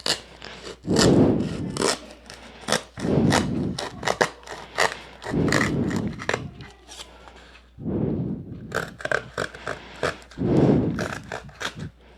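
Cardboard being cut by hand: an irregular run of rasping cutting strokes, each about half a second to a second long, with small clicks and scrapes between them.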